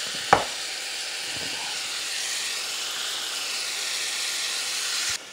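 Chopped onions, bell peppers and smoked sausage sizzling steadily as they sauté in a pot, with one sharp knock just after the start; the sizzle drops away abruptly near the end.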